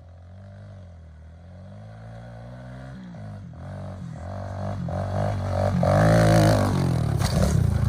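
Kawasaki KLX110 dirt bike's small single-cylinder four-stroke engine revving hard as it approaches, growing steadily louder, its pitch climbing, dropping back and climbing again as the throttle and gears change.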